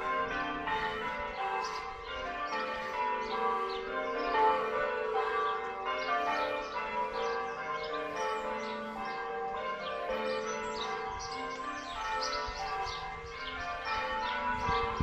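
Church bells ringing: a steady succession of strikes at different pitches, each tone ringing on into the next.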